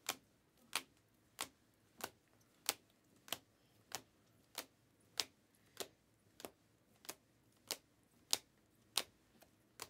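Clear plastic rigid card holders (toploaders) clicking against one another as cards are moved one at a time through a stack. It makes a regular run of sharp single clicks, about one every two-thirds of a second, a few of them doubled.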